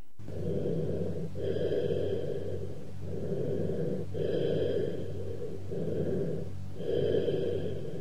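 Cavernous bronchial breath sounds, heard through a stethoscope over a lung cavity: low-pitched breathing, about three breaths. Each expiration is louder and higher-pitched than the inspiration before it, with a short break between them. A steady low hum runs underneath.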